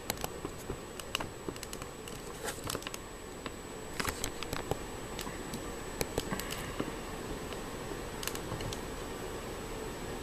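Scattered light clicks, ticks and rustles of a handheld camera being moved and reframed, over a steady faint hiss with a thin high-pitched whine.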